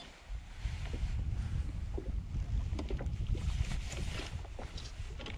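Wind buffeting the microphone as a low, gusting rumble, over water lapping at a small boat's hull, with a few light knocks of gear in the boat.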